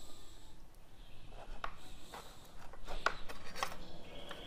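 Light metallic clicks and taps as the parts of a CB microphone's round multi-pin plug are fitted together by hand: a handful of scattered clicks in the second half.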